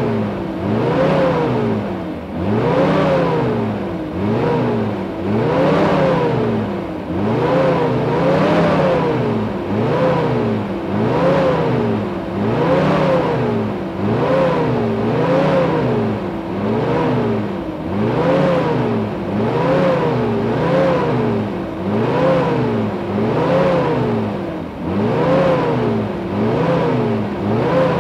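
1967 MG Midget's BMC A-series four-cylinder engine, heard from outside the car, revved over and over: each rev climbs smoothly in pitch and drops back, one about every one and a half to two seconds, never settling at idle.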